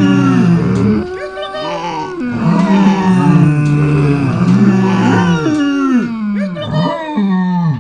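Farm animals calling: several long, low, drawn-out calls that overlap one another, some bending in pitch.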